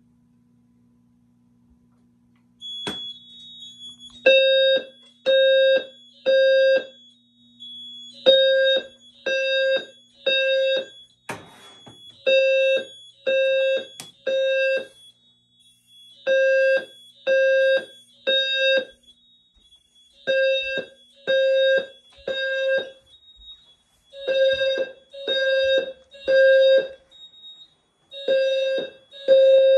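Simplex 4100ES fire alarm speakers sounding the temporal-three evacuation tone, starting about four seconds in: three half-second tones around 500 Hz, then a pause, repeating every four seconds. A steady high-pitched tone sounds underneath from about three seconds in.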